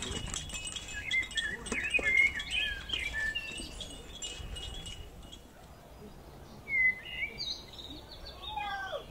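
Birds chirping: a run of short chirps over a steady high ringing in the first few seconds, then a few more chirps and a falling call near the end.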